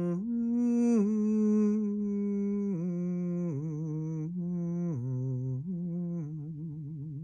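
A woman's voice humming a slow, wordless melody of long held notes that step up and down in pitch, dropping to a low note about five seconds in and wavering near the end.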